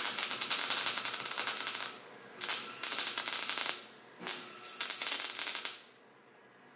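MIG welder arc crackling and sputtering in three runs of about a second and a half each, with short breaks between, as a steel roll-cage tube is welded to the car's roof and pillar.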